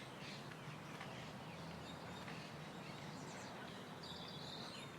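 Faint background ambience with small birds chirping now and then, one brief held high note about four seconds in.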